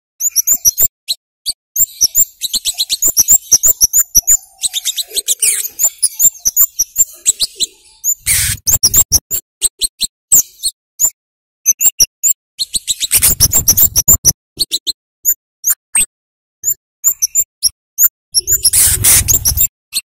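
Scarlet-headed flowerpecker (cabean, kemade) giving rapid runs of sharp, very high chirps, the kind used as a lure call for young birds. Three louder, noisier bursts break in, about 8, 13 and 19 seconds in.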